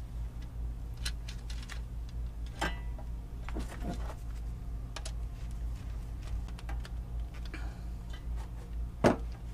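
Scattered light clicks and taps as gloved hands work a thick green copper ground wire onto the terminal of a metal-plated 50 amp welder receptacle, with one sharper click near the end, over a steady low hum.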